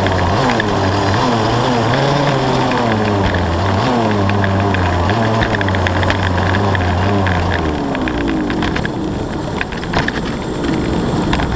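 Yamaha KT100 two-stroke kart engine with a Y-pipe exhaust, heard from onboard, revving up and falling back again and again through the corners. About eight seconds in the engine note fades, leaving a rushing noise and a few clicks.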